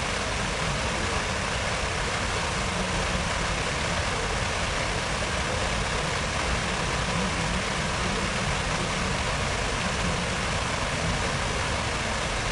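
Steady rushing splash of fountain water from a reflecting pool, even and unbroken, with a low rumble underneath.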